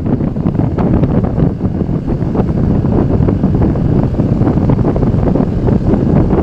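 Wind buffeting the microphone over the steady rumble of a moving vehicle, with scattered small knocks.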